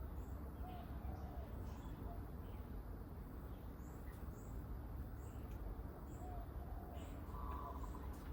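Small garden birds chirping: short, high, falling notes repeat roughly once a second, with a few softer, lower notes between them, over a steady low background rumble.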